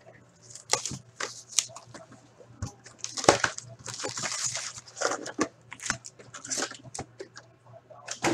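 Plastic shrink wrap crinkling and tearing as it is pulled off a sealed cardboard box of trading cards. Then the box is opened and the foil card packs are pulled out, in irregular rustles and crackles.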